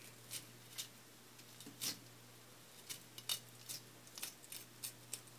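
Kitchen knife scraping between a bluegill's skin and fillet against a cutting board, in a series of short, irregular strokes as the flesh is shaved off the skin.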